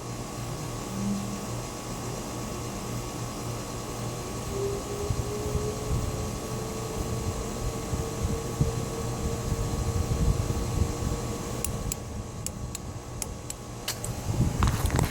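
Emerson Casablanca Classic ceiling fan starting up: a steady motor hum, with a whine that comes in about four seconds in and slowly rises in pitch as the fan gets up to speed. A few sharp clicks near the end.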